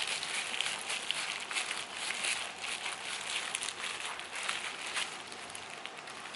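Disposable plastic gloves crinkling, with small clicks from a bamboo rolling mat, as hands squeeze and roll a gimbap roll.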